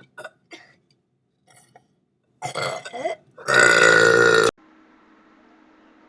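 A loud, drawn-out deliberate belch lasting about a second, preceded by a shorter, quieter sound that slides in pitch; it cuts off abruptly, leaving a faint steady hum.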